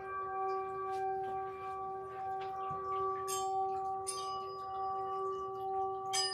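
A singing bowl ringing on in a long steady tone, with three bright metallic strikes that ring high, about three, four and six seconds in.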